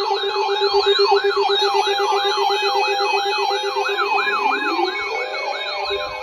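Several electronic sirens sounding together. One sweeps quickly up and down in a yelp, between two and three times a second, over a rapidly pulsing low tone. About four seconds in, a slow rising wail begins.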